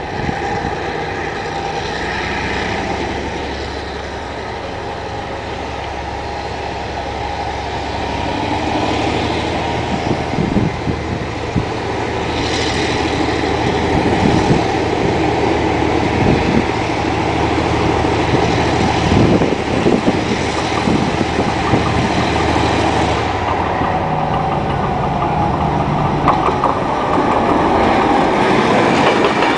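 R20 diesel-electric locomotive's engine running as it hauls a coal train toward and past a level crossing. The steady low drone grows louder, with irregular knocks from the wheels on the rails from about ten seconds in.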